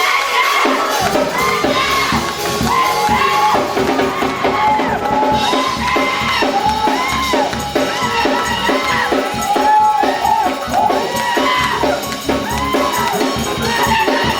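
Up-tempo gospel praise music with a tambourine, and a congregation shouting and cheering along.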